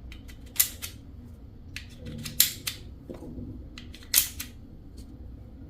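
Sharp clicks from an FSC/TCP less-lethal launcher magazine as shaped projectiles are pushed into it one at a time. The clicks mostly come in pairs, about every two seconds.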